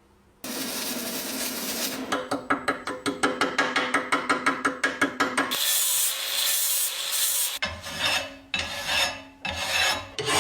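Hand filing and rubbing on the parts of a vegetable grinder being restored. It starts as a steady rasp, changes about two seconds in to quick regular strokes about six a second, then to a higher, even hiss, and ends in slower, uneven strokes.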